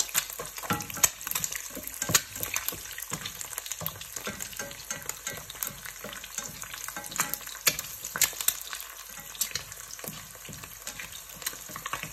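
Eggs frying in hot oil in a nonstick pan: a steady sizzle broken by frequent sharp crackling pops.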